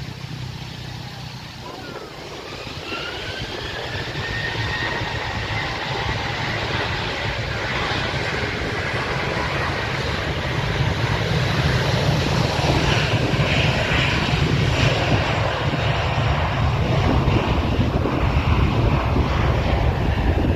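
Airliner engines spooling up to takeoff power, a whine that rises in pitch and then holds while the roar grows steadily louder. Wind buffets the microphone throughout.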